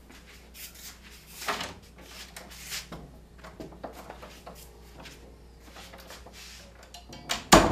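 Small-room tone with a low steady hum and scattered soft knocks and rustles of someone moving about, then a sharp thump near the end.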